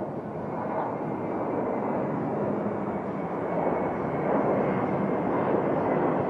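Twin-engine jet airliner climbing out after takeoff, its engines at climb power: a steady rushing jet noise that grows a little louder as the aircraft passes.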